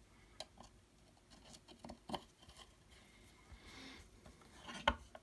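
Faint small clicks and ticks of a screwdriver turning small screws into a folding knife's handle, with a sharper click about two seconds in and a louder single knock near the end.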